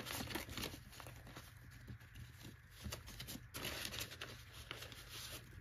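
US paper dollar bills being counted by hand: soft, repeated rustles and flicks as the notes are leafed through.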